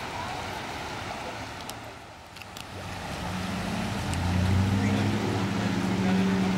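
Floodwater rushing across a street, with a vehicle engine running low underneath that grows louder from about three seconds in.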